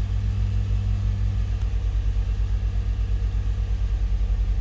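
Chevrolet Trailblazer engine idling with an even, pulsing beat of about eight to nine pulses a second, its idle still settling after starting.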